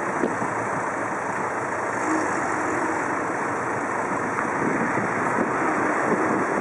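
Freight train of open wagons rolling slowly over a level crossing: a steady rumble of wheels on rail.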